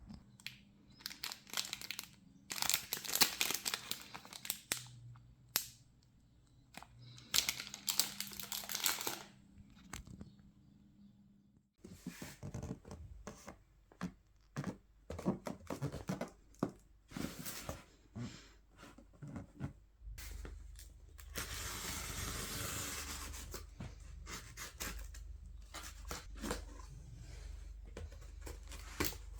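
Packaging being handled: paper or plastic crinkling and tearing in a series of short bursts, with abrupt changes in the background between segments.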